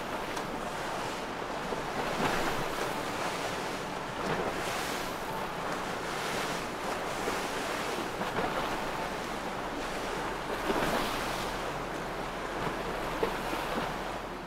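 Wind buffeting the microphone over breaking waves and surf, a steady rushing noise that swells every couple of seconds, with a faint steady low hum beneath.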